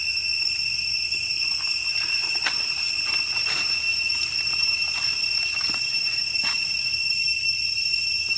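Steady high-pitched insect drone, typical of cicadas, with a handful of short sharp chirps or clicks over a few seconds in the middle.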